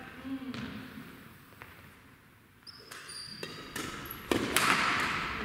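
Badminton play on an indoor court: irregular sharp racket strikes on the shuttlecock and squeaks of court shoes on the gym floor, louder and busier near the end.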